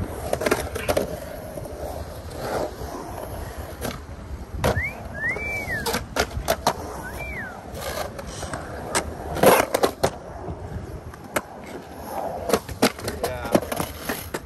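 Skateboard wheels rolling and carving on the concrete of a pool bowl, with sharp clacks of the trucks and wheels striking the pool coping. The loudest clack comes about nine and a half seconds in, and there is a run of knocks near the end.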